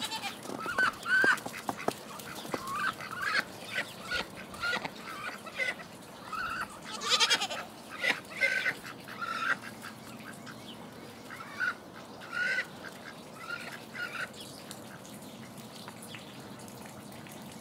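Domestic ducks quacking, a quick run of short calls that thins out after about ten seconds.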